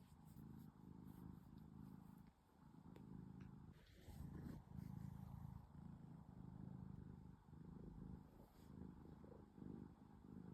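A drowsy, contented cat purring, a low rumble that pulses in breath cycles with short breaks every second or two.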